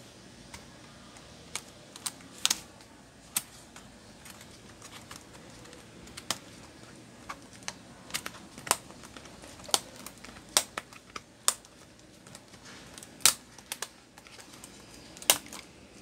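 Keys being pressed on a Lenovo ThinkPad T430 laptop keyboard: sharp, separate key clicks at irregular intervals, a few close together at times, the loudest near the end.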